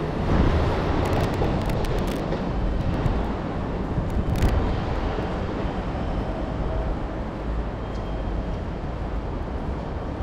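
Ambient noise of an open-air railway station platform: a steady deep rumble, with a few sharp clicks in the first half.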